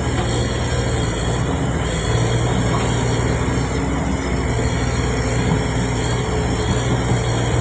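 Backhoe's diesel engine running steadily, with a strong low hum and thin high tones over it.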